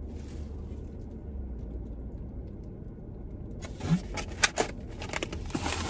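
Steady low hum inside a car, then, from a little over halfway through, paper food wrappers and a takeout bag crinkling and rustling as they are handled, with irregular crackles.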